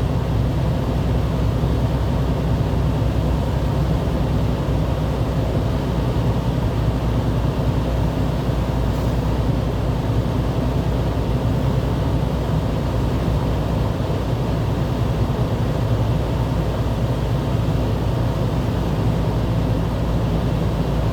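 Steady rumble and hiss of a vehicle heard from inside its cab, with the engine and road noise strongest in the low end and no changes.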